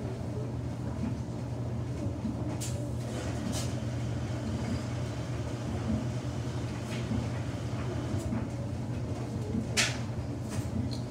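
Samsung front-loading washing machine tumbling a single wet towel: a steady motor hum with water sloshing in the drum and a few short, sharp splashes or knocks, the loudest about ten seconds in.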